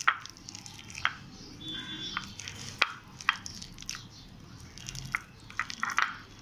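Wet squelching of a hand squeezing and mashing sticky wood apple pulp in a ceramic bowl, with a few sharp clicks and smacks at irregular moments.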